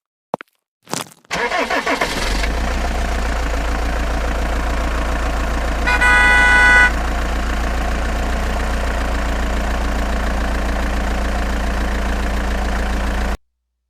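An engine starts about a second in and settles into a steady run. A horn sounds for just under a second midway. The sound cuts off suddenly near the end.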